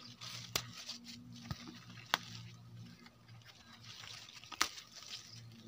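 Night-flowering jasmine (shewali) leaves rustling and snapping off as they are plucked by hand, with a few sharp clicks spread through.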